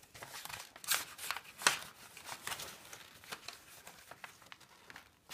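A paper envelope being torn open by hand: a run of crackly rips and rustles, with two louder rips in the first two seconds and softer rustling after.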